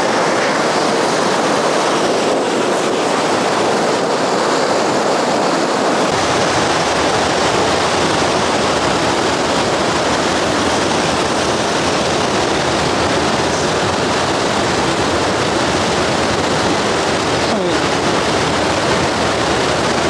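Galleny Force waterfall: a rocky mountain stream cascading over boulders in a steady rush of white water, growing fuller and deeper about six seconds in.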